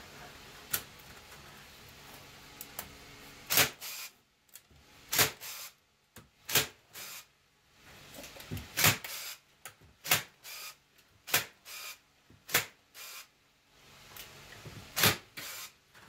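Electric staple gun firing staples through wire mesh into a wooden frame: a series of sharp snapping shots, about one every second or two, with short pauses while the gun is moved along the edge.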